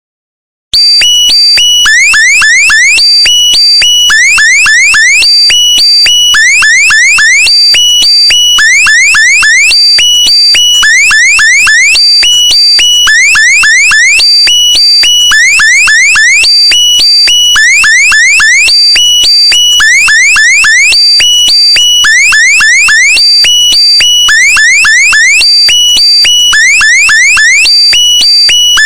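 Electronic alarm sound effect starting abruptly just under a second in, then repeating: clusters of three or four quick rising chirps over steady high tones, about every two seconds.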